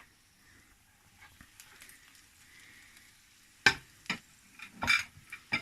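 Faint sizzling of just-cooked crispy fish, then four sharp clinks and knocks of kitchen utensils against dishes in the last two seconds.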